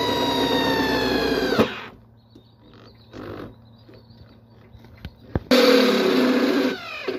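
Corded electric drill boring into the sheet-metal top of an electrical enclosure, its motor whining at a steady pitch; it stops about one and a half seconds in. After a few clicks it runs again near the end for about a second, then winds down with a falling whine.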